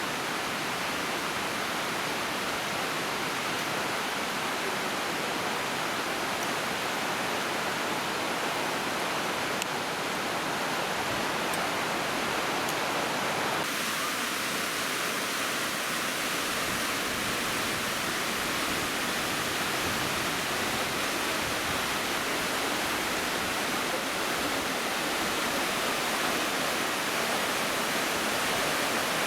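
Waterfall: a steady rush of falling water. Its tone changes abruptly about halfway through.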